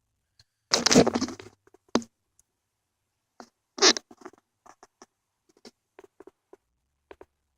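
Hands handling an aluminum flashlight: a short rustle about a second in, a sharp click at two seconds, another rustle near four seconds, then a run of small faint clicks.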